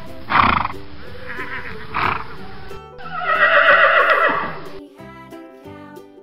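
A horse whinny, loud and falling in pitch, about three seconds in, over background music, after two short noisy bursts. Near the end the music changes to a lighter tune with clear separate notes.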